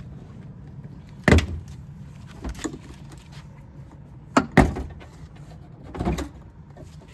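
Plastic trim clips snapping loose as a 10th-gen Honda Accord's trunk sill trim panel is pried up with a plastic pry tool. There is a sharp snap about a second in, a double snap around four and a half seconds, and a softer one near the end.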